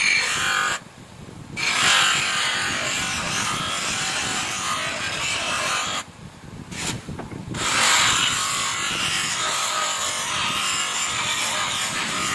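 Steady abrasive rubbing as a rear drum brake cover is sanded and polished. It stops briefly twice, about a second in and again about six seconds in.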